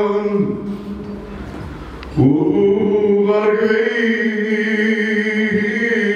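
A man sings long, drawn-out notes into a microphone. His voice drops away for about a second and a half, then comes back with a note that slides up and is held with a slight waver.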